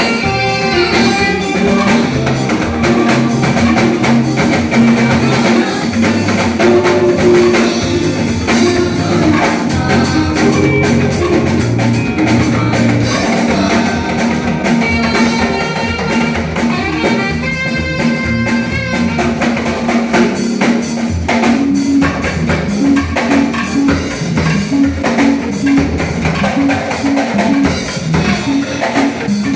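A live band playing through a sound system at a sound check, with a drum kit and a steady bass line under melody instruments.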